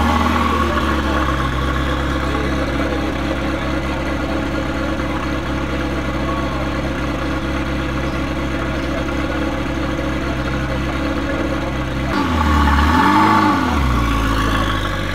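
Ferrari 288 GTO's twin-turbo V8 running at low revs as the car rolls slowly past. Near the end the revs dip, rise briefly and fall again.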